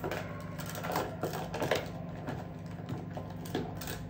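Scattered light clicks and taps of small objects being handled, irregular, about one to two a second, over a steady low hum.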